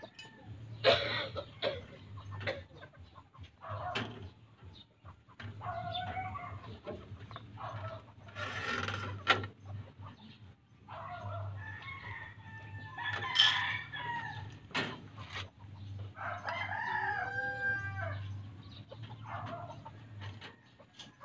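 Roosters crowing about three times, with chickens clucking and short clicks and rattles in between.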